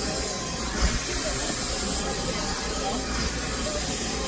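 Handheld hair dryer blowing steadily, a constant airy rush, while hair is blow-dried over a round brush.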